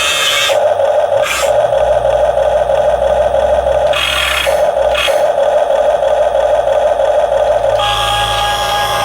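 Small electric motors and gearboxes of a Huina 1550 remote-control excavator whirring steadily. The whirring breaks off and starts again several times, with brief louder hissy bursts about a second in and again around four and five seconds in.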